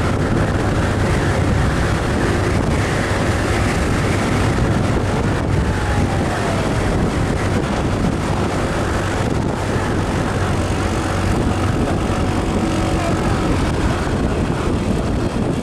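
Motorcycle on the move: steady engine drone mixed with wind rushing over the microphone.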